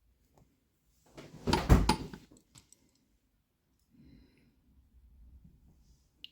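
Handling noise as the lock's small metal pins and spools are moved on the bench: a short clatter with one loud knock about a second and a half in, then faint shuffling.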